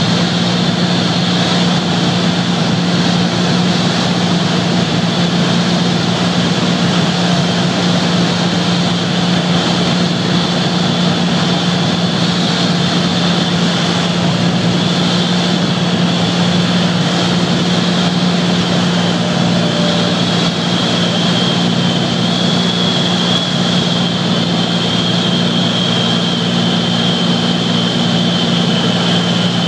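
Cabin noise of a Beechcraft A36 Bonanza on final approach: the six-cylinder engine and propeller drone steadily, with a high whine that slowly drifts lower in pitch over the second half.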